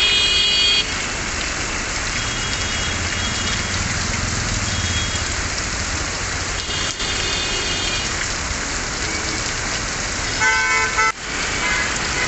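Heavy rain hissing steadily on a busy road, with traffic moving through it and vehicle horns honking: a loud horn right at the start, fainter toots around two and seven seconds in, and another loud, lower-pitched horn about ten and a half seconds in.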